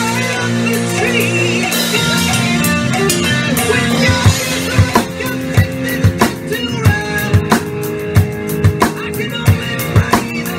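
Acoustic drum kit with Zildjian A Custom cymbals and an Evans-headed snare, played live along to a rock backing track with guitar. The groove leans on the snare; about halfway through the backing thins and loud, evenly spaced drum hits stand out.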